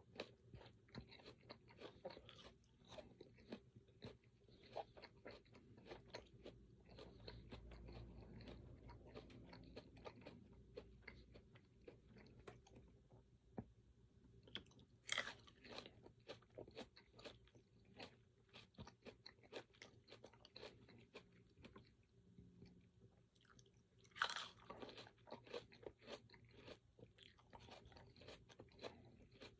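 A person chewing and biting crunchy food, with many small wet clicks and crunches, and two louder crisp bites about halfway through and again later on.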